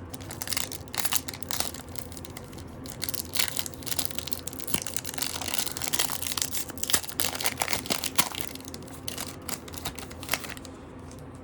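Foil Pokémon booster pack wrapper being torn open and crinkled by hand: irregular crackling and crumpling throughout.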